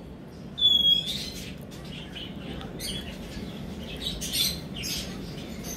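Moluccan cockatoo giving one short, high squeak about half a second in, then a run of soft, scratchy little noises.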